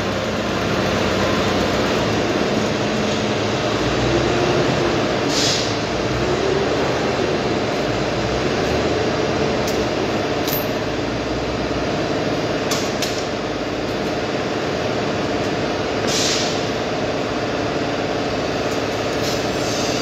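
Steady machine drone with a low hum that does not change, with a few short metal clanks and knocks scattered through it, the clearest about five and a half, ten and sixteen seconds in.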